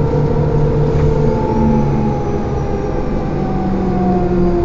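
Running noise heard from inside a moving vehicle: a steady engine and drivetrain hum over road rumble, with a whine that slowly falls in pitch through the middle.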